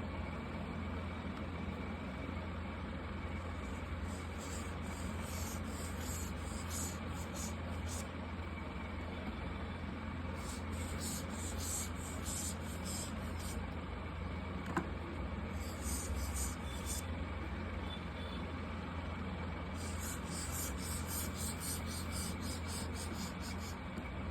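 Marker tips rubbing across paper in runs of quick strokes that come and go, over a steady low hum, with a single small click near the middle.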